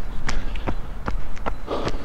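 A runner's footsteps striking the path at about two and a half strides a second, over a steady low rumble on the microphone.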